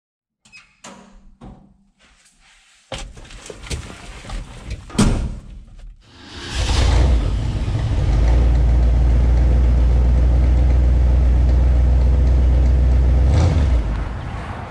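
A few clicks and knocks, then about six seconds in a 1967 Ford F100 pickup's engine comes up to a loud, steady deep rumble that holds for several seconds and drops away near the end.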